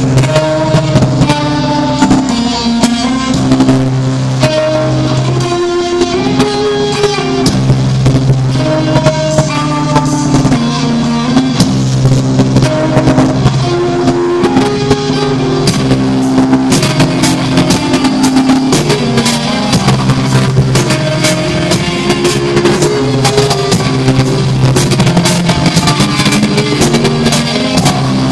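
Heavy metal band playing live: distorted electric guitar riffs over a drum kit. The drumming gets busier, with denser cymbal and snare hits, from about halfway through.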